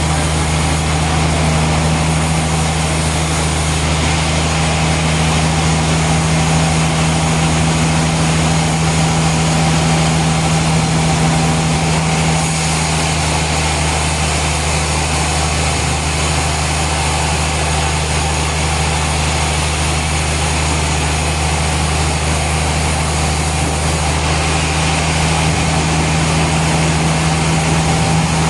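Heavy industrial machinery running steadily: a constant low hum under a wash of noise, with no distinct cuts or impacts.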